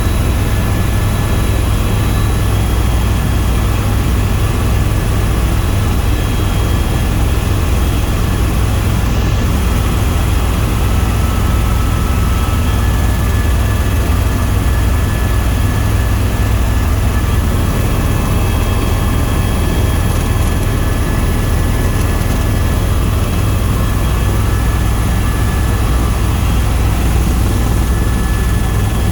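Tour helicopter in steady flight: a loud, unchanging drone heaviest in the low end, with a few faint steady whining tones above it.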